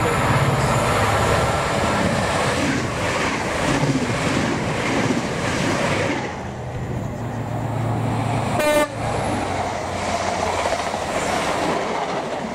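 Passenger train running past close by with a steady low rumble. About nine seconds in comes one short, sharp toot of its horn.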